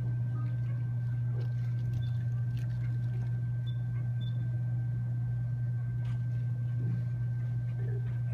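Steady low hum of room noise with a faint, steady high whine, and a few faint knocks.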